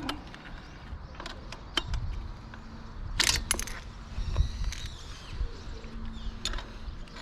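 A 12 mm spanner clinking on the chain-adjuster nuts of a Honda Ape 100: a handful of sharp metallic clicks, with a quick cluster of them about three seconds in, over low handling noise.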